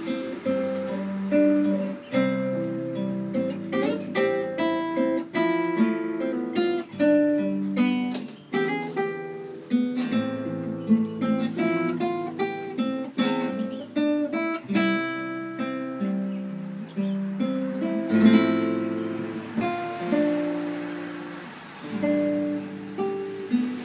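Nylon-string classical guitar played fingerstyle: a slow melody of plucked notes ringing on over bass notes, with a louder strummed chord partway through.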